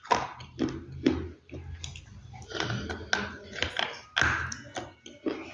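Dry, earthy material crunching in a series of irregular crisp crackles, with stronger crunches just after the start, about a second in, around two and a half to three seconds in, and about four seconds in.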